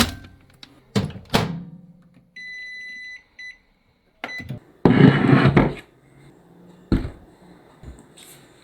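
A microwave oven beeping once, a steady high tone about a second long, among knocks and handling clatter; a louder rustling clatter follows, then a single thunk.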